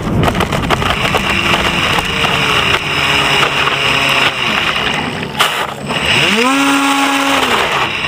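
Onboard sound of an RC Polaris flying boat's motor running as the model taxis across the water and up onto the bank, with water and wind noise against the hull. Near the end the motor is throttled up sharply for about a second and then wound back down.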